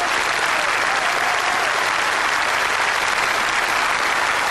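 A hall audience applauding, dense and steady throughout.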